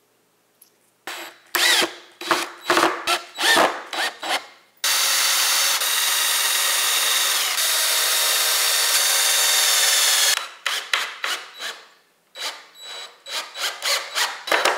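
Cordless drill boring a pilot hole into a hardwood pallet board. It is started in short spin-ups, runs steadily for about five seconds, then goes in quick stop-and-go pulses near the end.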